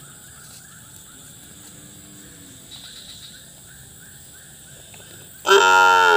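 A young calf gives one short, loud moo about five and a half seconds in.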